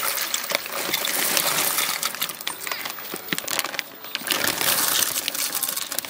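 Dry pasta being poured into a steel saucepan of steaming water: a dense, continuous patter of small clicks and splashes, easing briefly about four seconds in.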